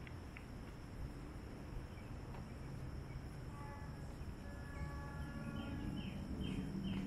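Steady background ambience: an even hiss with a constant high whine, with a few faint short tones in the middle and a run of quick falling chirps, about two a second, near the end.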